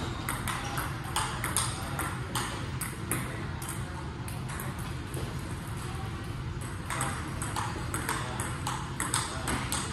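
Table tennis rally: the plastic ball clicks sharply off the rubber-faced paddles and the table, several hits a second, with a short lull near the middle. A steady low hum runs underneath.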